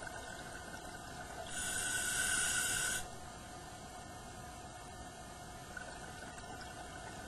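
Scuba diver breathing through a regulator underwater: one exhalation sends out a hissing rush of bubbles for about a second and a half, starting about a second and a half in. Under it runs the steady faint whine of the camcorder's tape mechanism inside its underwater housing.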